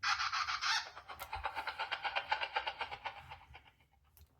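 Bat wing-flapping sound effect played through a children's sound book's tiny built-in speaker: a rapid, even fluttering that starts suddenly and fades out after about three and a half seconds.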